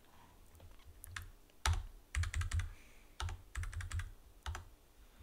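Computer keyboard being typed on in short bursts of key clicks, a few keystrokes at a time with short pauses between.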